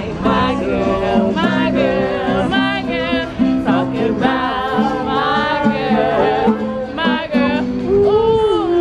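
Street guitarists strumming acoustic guitars and singing, with women singing along; the sung lines waver in pitch over steady chords.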